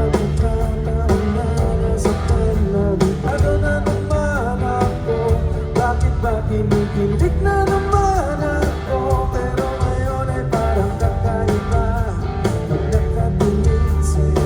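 Live band music with a singer holding a melody over guitar and drums, played steadily throughout.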